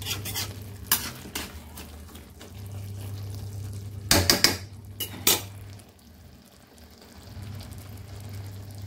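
A metal spatula scraping and clinking against a wok-like pan while thick gongura chicken curry is stirred, with a quick cluster of scrapes about four seconds in. A low steady hum runs underneath.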